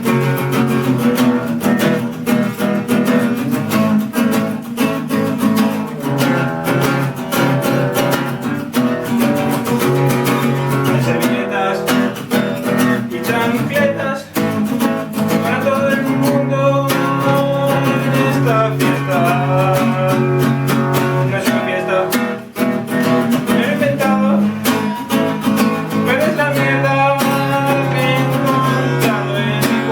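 Acoustic guitar music, strummed and picked continuously.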